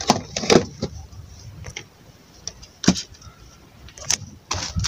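Plastic container with a Hello Kitty lid being handled and set down on a shelf: several short knocks and clicks of hard plastic.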